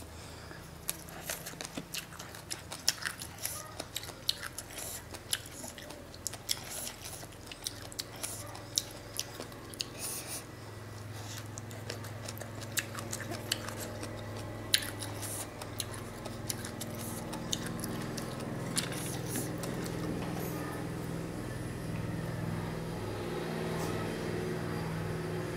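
Chewing and biting a mouthful of green papaya salad with noodles, with many sharp crunches and mouth clicks during the first half. A low steady hum comes up in the background in the second half.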